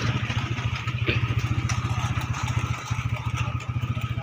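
Motorcycle engine running at a steady speed, its exhaust beats coming as a rapid, even pulse.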